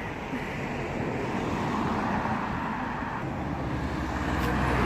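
Car driving by on a street, its engine and tyre noise growing steadily louder as it approaches.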